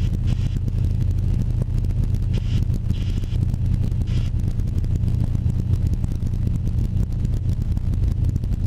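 Light aircraft's piston engine and propeller at full throttle on the takeoff roll: a loud, steady drone heard from inside the cockpit.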